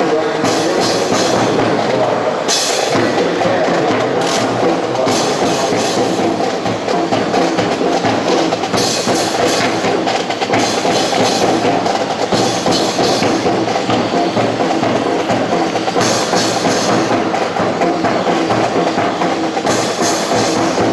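Music with percussion playing steadily, with sharp knock-like hits.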